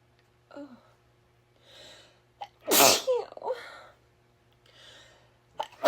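A woman sneezing: one loud, sharp sneeze about three seconds in, with a short voiced tail. Audible breaths in come before and after it, and the next sneeze bursts out right at the end.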